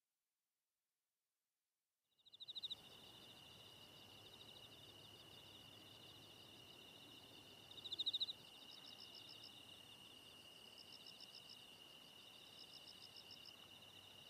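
Nature ambience of chirping insects: a steady high-pitched whine with repeated trilling chirps. It starts after about two seconds of silence, with louder chirp bursts about two and a half seconds in and again about eight seconds in.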